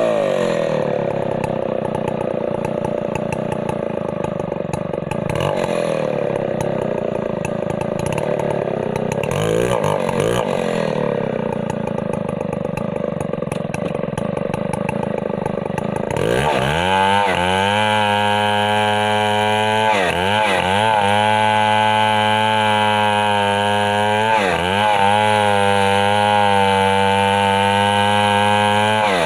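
Stihl MS 070 two-stroke chainsaw running hard, its pitch held down under load for the first half. About halfway through it climbs to a higher steady speed, dipping briefly a few times.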